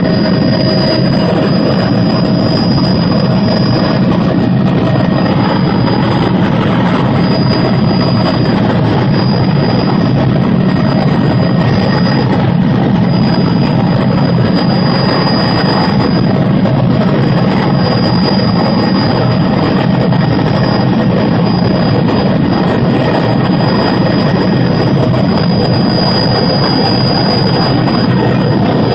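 Tour helicopter in flight: steady, loud rotor and turbine engine noise with a thin high whine, unchanging throughout.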